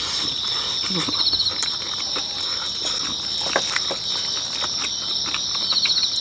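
Night insects trilling steadily in two high, continuous tones, with a short rapid pulsed chirp about every four to five seconds. Over it, close chewing and mouth sounds of eating kimchi and pork, with a few light clicks.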